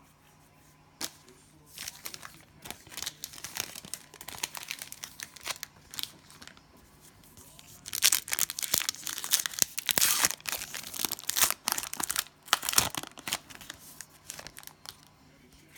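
Cellophane wrapper of a Panini Prizm cello pack of trading cards being torn open and crinkled. It comes in irregular crackling bursts that are loudest in the second half.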